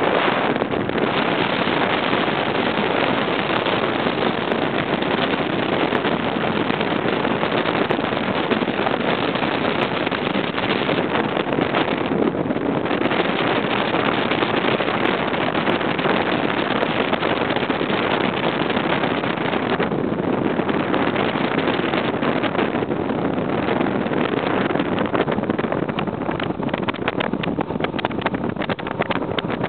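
Bass boat running flat out across the lake: a steady rush of wind over the microphone, with its Mercury 200 EFI outboard running underneath.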